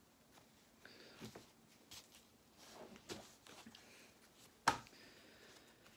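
Vinyl record sleeves being handled and shuffled, with faint rustles and taps and one sharp knock a little under five seconds in.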